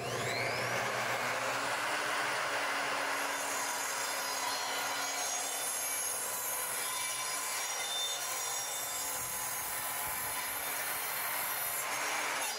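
Electric sliding compound miter saw spinning up with a rising whine, then cutting slowly and steadily through a wooden 2x4.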